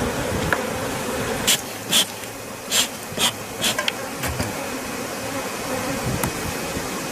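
Honey bees buzzing in a steady, dense hum around an open hive being robbed of honey. A handful of short, sharp clicks and knocks come between about one and a half and four seconds in.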